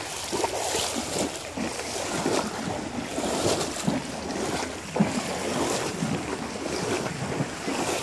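A horse wading through a creek, its legs splashing and sloshing through the water in irregular bursts with each stride.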